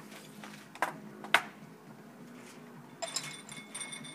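Tea ware being handled: two sharp clicks about a second in, then, about three seconds in, a short run of light clinks that ring briefly, like porcelain and glass knocking together.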